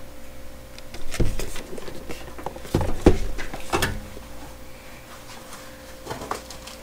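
Cardboard microphone box being handled, turned over and set down on a tabletop: a few knocks and thumps in the first four seconds, then quieter rustling. A faint steady hum sits underneath.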